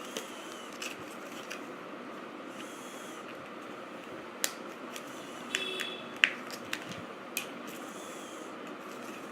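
Scattered light clicks and snaps of small plastic parts being handled, with a short squeak about halfway through and the sharpest snap just after it, over a steady hiss.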